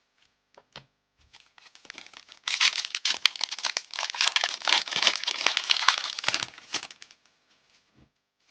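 A foil Pokémon TCG booster pack being torn open and crinkled, a dense crackling rip that lasts about four seconds, preceded by a few soft handling clicks.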